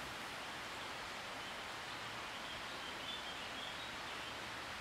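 Steady outdoor background hiss, with faint distant bird calls chirping in the middle.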